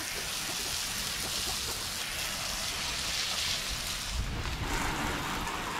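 Garden hose spraying water onto the dirt floor of a chicken run: a steady, rain-like hiss of water hitting wet ground. About four seconds in the sound turns duller as the spray moves toward the side of the run.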